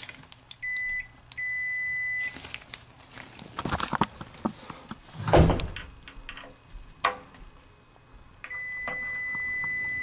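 A Craftsman multimeter's continuity beeper sounds a steady high beep: twice briefly near the start, then continuously from near the end as the probes bridge the water heater's upper heating element, showing the element is good. Between the beeps come handling clicks and one louder thump about halfway.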